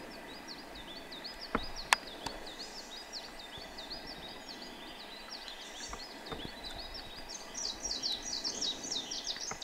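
A long, even series of short, high chirps, about four a second, growing louder over the last two seconds. Two sharp clicks come just under two seconds in.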